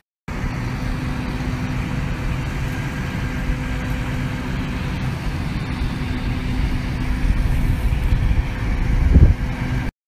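Claas tractor engine running steadily as it drives over a mown grass field, a low rumble with a faint steady hum, swelling briefly louder about nine seconds in.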